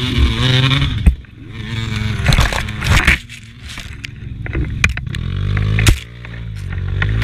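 Beta RR 200 two-stroke enduro bike engine revving up and dropping back, twice cutting away sharply after a peak, with several knocks and scrapes as the bike is wrestled in the mud.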